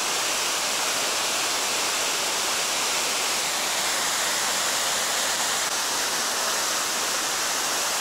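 Steady rushing of Palovit waterfall, a tall single-drop falls plunging into a gorge, as an even, unbroken hiss of falling water.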